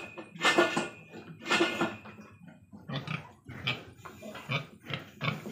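Pigs grunting: two loud, harsh calls in the first two seconds, then a run of shorter, low grunts at about two a second.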